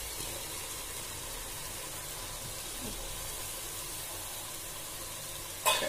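Marinated prawns frying in hot oil and masala in a pot: a steady sizzling hiss, with one brief sharp sound near the end.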